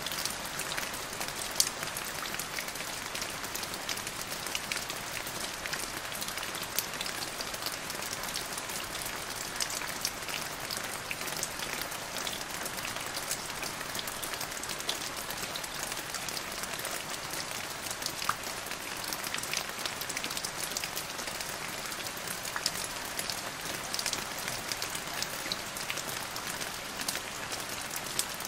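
Steady heavy rain falling on standing floodwater and waterlogged ground, a dense wash of many small drop taps.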